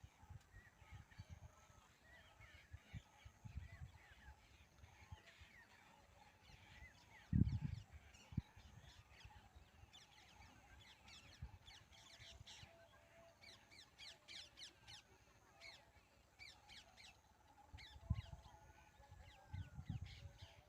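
Faint calls of many birds, short sharp notes overlapping one another throughout. A low thump about seven seconds in is the loudest sound, with a few more near the end.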